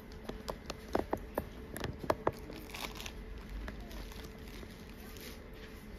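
Handling noise: a quick string of light clicks and crinkles in the first two seconds or so, then quieter with a faint steady hum.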